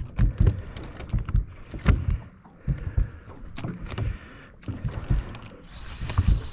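Irregular knocks and thumps on a boat deck as a landed fish in a landing net is handled, with a steady hiss starting near the end.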